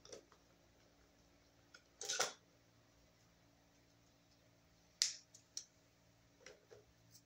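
Black electrical tape pulled off the roll and torn while wrapping a white wire: faint crackles and snaps, a longer crackle about two seconds in and a sharp snap about five seconds in, with a few small clicks after it.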